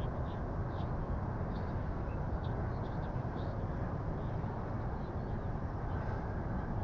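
Steady low background rumble, like wind or distant traffic, with faint short high chirps every second or so.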